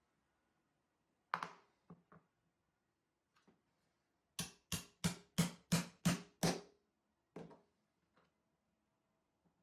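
Mallet tapping a steel guide rod into a hole in a wooden plunge-base part: one knock, a couple of light clicks, then a quick run of seven sharp taps about three a second, and one more a second later.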